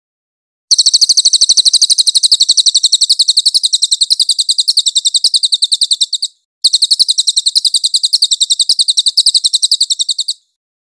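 Crested jay (cililin) giving its rapid rattling call: about ten sharp, high clicks a second, in two long runs with a short break about six seconds in.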